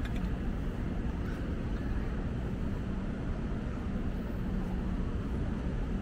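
Steady low rumble of city traffic, with a faint constant hum underneath and no distinct events.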